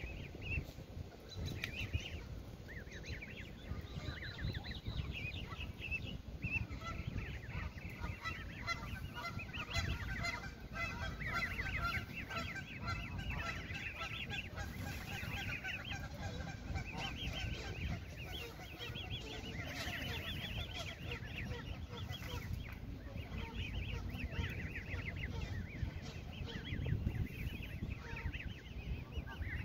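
A brood of Canada goose goslings peeping, many short high calls overlapping almost without pause, among the adult geese.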